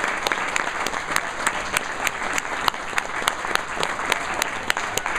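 Audience applauding steadily after a piano performance, with one clapper close by standing out about three times a second.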